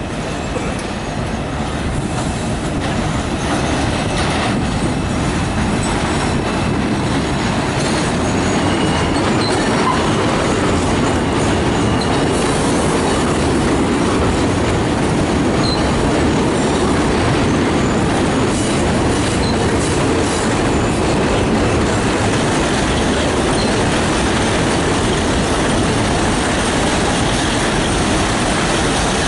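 R160 subway train running on an elevated steel structure: a steady loud rumble of wheels on rails that builds over the first couple of seconds, with faint high wheel squeal on the curve partway through.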